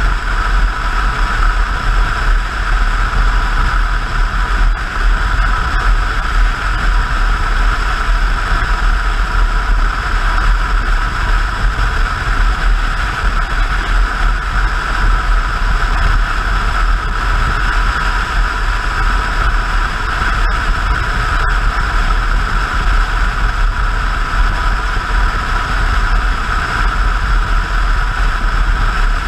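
Motorcycle cruising at steady highway speed, heard from a camera mounted on the bike: a loud, constant rush of wind and road noise over the low rumble of the engine.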